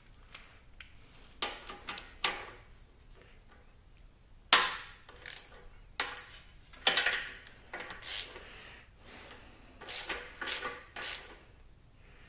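Metal hand tools and sockets clinking and clanking in an irregular series of sharp knocks while the right size of socket is being found.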